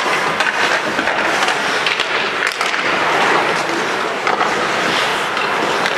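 Ice hockey play on a rink: skates scraping the ice and sticks clacking, with a steady wash of noise and several sharp knocks.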